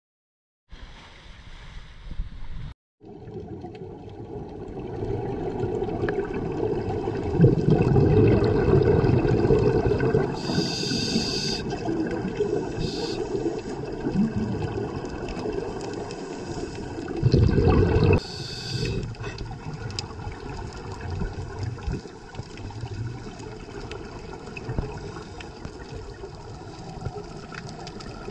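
Muffled underwater sound of scuba divers breathing on their regulators: bubbling exhalations swelling and fading over a steady low rushing, with louder bursts of bubbles a few times.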